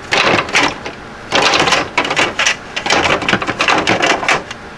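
Plastic automatic egg-turner trays of a Maticoopx incubator clattering and clacking as they are lifted out, in about five short spells of rattling.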